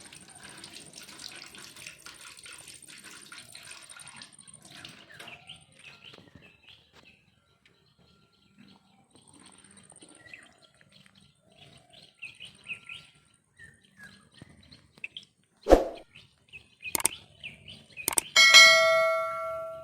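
Faint scattered bird chirps, then a few sharp knocks, and near the end a struck metal object ringing like a bell and fading.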